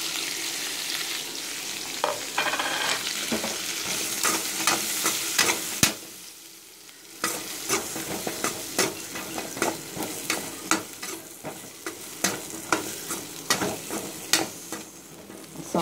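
Shallots and drumstick pieces sizzling in hot oil in a metal kadai while a metal spoon stirs them, clinking and scraping against the pan many times. The sizzle drops briefly about six seconds in, then the stirring and frying pick up again. This is the vegetables being sautéed with spice powder for sambar.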